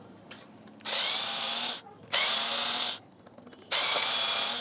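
Small power drill-driver running in three short bursts, each starting with a brief rising whine, as it backs out screws to remove a speaker driver from its cabinet.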